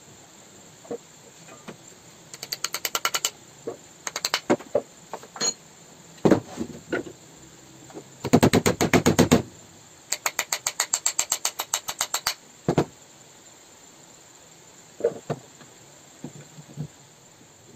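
Quick runs of light hammer taps, about eight to ten a second, on a Stanley circular saw's motor armature standing on a wooden block, with scattered single knocks from handling the parts.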